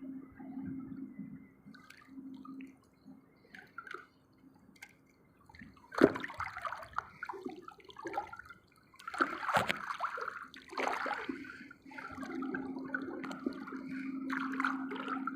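Water sloshing and splashing in irregular surges, quiet at first, then a sudden louder splash about six seconds in and more surges a few seconds later.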